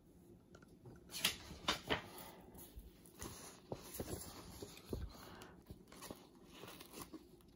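A sheet of paper rustling and crackling as it is handled, in irregular crackles that start about a second in.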